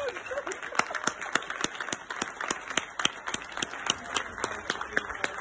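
Several people clapping their hands together: a dense, uneven patter of hand claps, with some louder single claps standing out over it.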